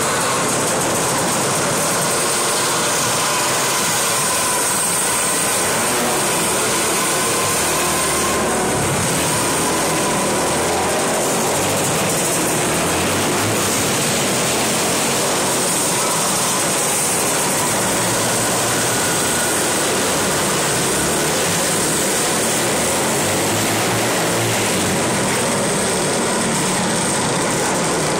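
Several winged outlaw dirt karts racing together, their small engines making a loud, continuous drone of overlapping engine notes that waver in pitch as they run laps under a covered arena roof.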